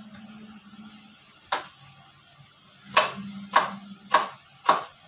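Kitchen knife chopping on a wooden cutting board: one knock about a second and a half in, then a steady run of four knocks, roughly two a second.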